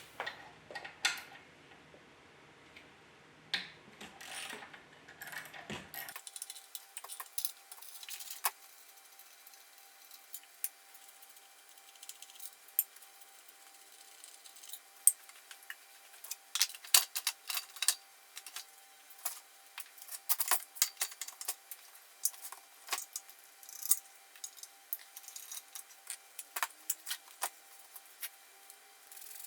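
Irregular clicks and clinks of hand tools and small metal parts being handled during the teardown of a Dremel scroll saw.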